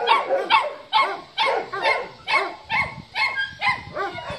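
Dogs barking over and over, short rising-and-falling barks at about two a second.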